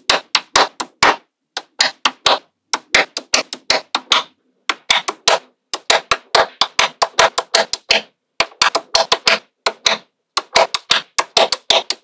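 Small magnetic balls snapping together one after another, sharp clacks about five a second, broken by a few short pauses.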